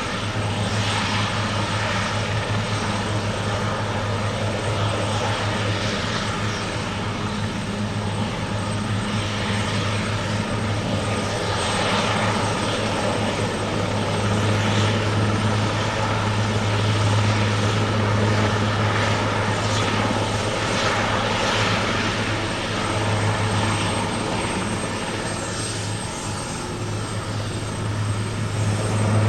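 Eurocopter AS332L1 Super Puma helicopter running, its rotors and twin turboshaft engines making a steady, loud drone that swells near the end.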